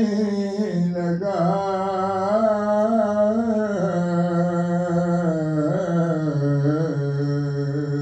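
A man's solo voice chanting an Urdu noha (Muharram lament), unaccompanied. He holds one long, wavering melismatic note that steps down in pitch a few times.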